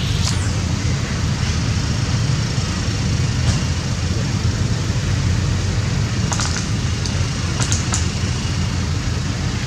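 Steady low rumbling background noise, with a few short faint ticks about two-thirds of the way through.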